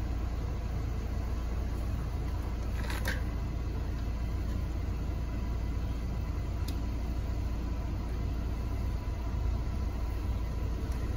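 A steady low rumble, with faint rubbing of a bicycle tire being handled and worked onto its rim, and a single sharp click about three seconds in.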